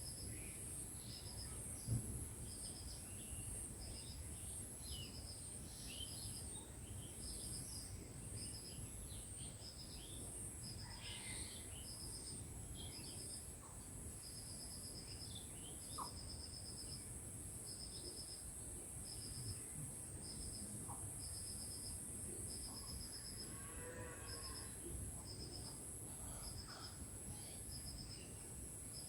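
Insects calling steadily in rural ambience: a continuous high-pitched buzz, with a lower pulsed chirping train that repeats about once a second, and occasional short bird chirps among them.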